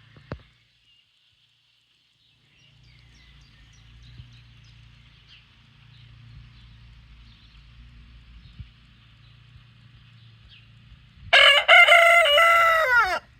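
A rooster crows once, loud and about two seconds long, near the end; before it there is only a faint low hum.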